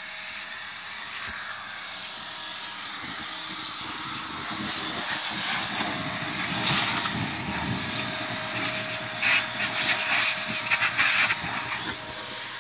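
Leaf blower running steadily, with several louder rushes of air in the second half.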